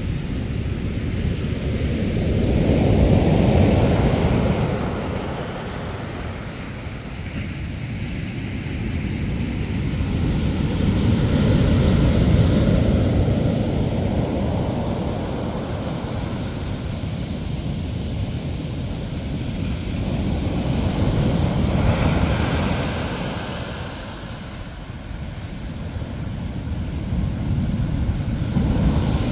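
Ocean surf breaking and washing up a sand beach, a steady rushing that swells louder about every eight to ten seconds as each set of waves comes in.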